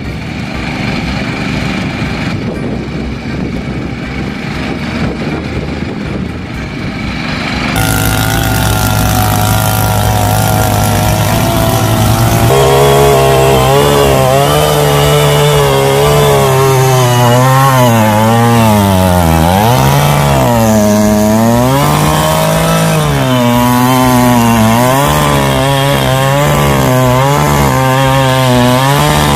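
A power tiller's engine running while it churns a flooded field. About eight seconds in, this gives way to the louder, higher buzz of a small two-stroke mini tiller engine, its pitch repeatedly sagging and rising again as the tines bite into dry soil.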